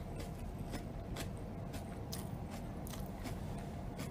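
Faint chewing and scattered light clicks of a plastic fork picking at salad in a takeaway container, over a low steady hum.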